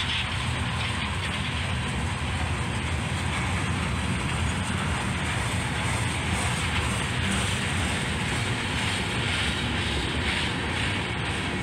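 Freight train rolling past with a steady rumble.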